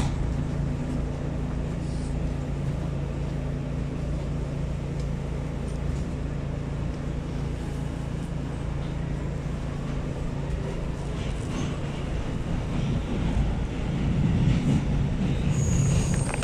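Interior of an R211 subway car running on the track: a steady rumble with a low hum, growing louder about three-quarters of the way through.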